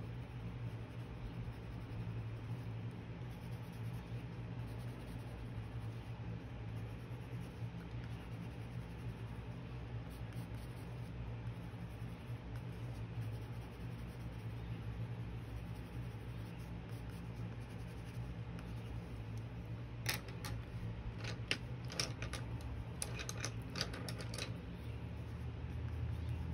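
Steady low background hum, with a short run of sharp clicks and taps near the end.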